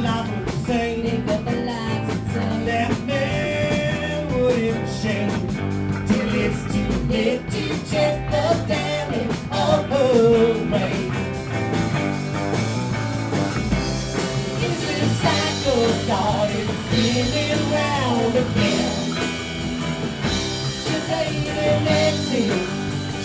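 Rock song with singing over a steady beat.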